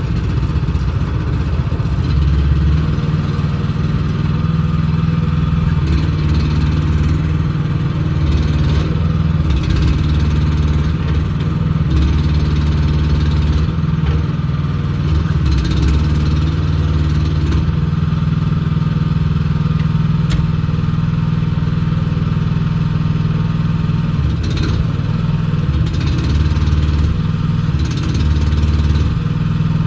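Engine of a new AGT L13R mini excavator running after start-up, a steady note whose low end swells and dips every few seconds, with a few sharp clanks.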